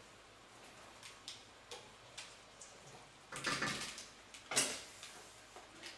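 Kitchenware being handled on a countertop: a few light clicks and taps, then two louder clattering scrapes just past halfway and about a second later.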